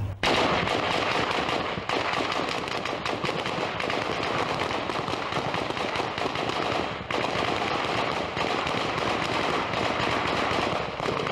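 Sustained automatic weapons fire: many rapid shots running together into a continuous rattle of a firefight. It breaks off briefly about two seconds in and again about seven seconds in, then resumes.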